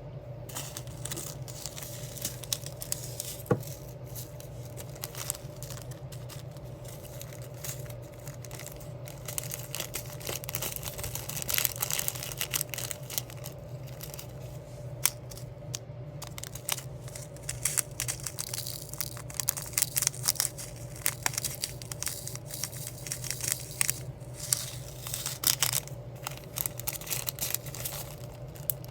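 Diamond painting at close range: a constant patter of small clicks and taps as the drill pen picks up and presses down resin gems, mixed with crinkling and peeling of the plastic sticker sheet. A steady low hum sits underneath.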